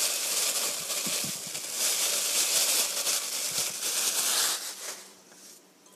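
Thin plastic bag crinkling and rustling as leftover flour is shaken out of it into a bowl of sliced zucchini; the rustling dies away about five seconds in.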